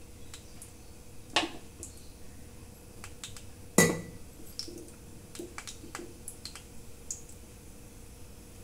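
Stainless-steel kitchenware clinking and knocking on a stove top as a steel plate and cup are handled, with two louder clanks about one and a half and four seconds in, the second ringing briefly. A faint steady hum runs underneath.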